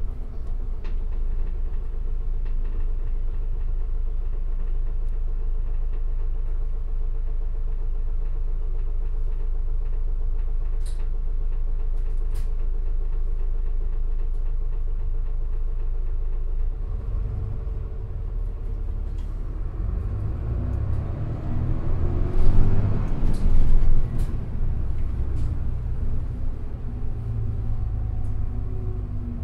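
Isuzu Erga city bus's diesel engine and running noise heard inside the cabin: a steady low rumble with a constant hum at first. About two-thirds of the way through, the engine note rises as the bus accelerates, loudest just past the middle of that climb.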